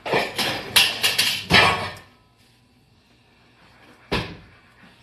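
Kitchen handling noises: a run of loud rustling and clattering in the first two seconds, then one short knock about four seconds in.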